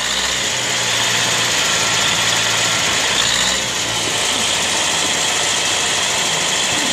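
Universal 650 farm tractor's diesel engine running steadily, close up.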